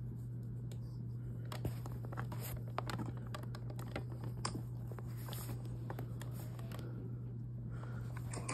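Handling noise as hands fit a microphone prop onto a plush animatronic figure's bass: scattered small clicks, taps and scrapes with fur rustling, over a steady low hum.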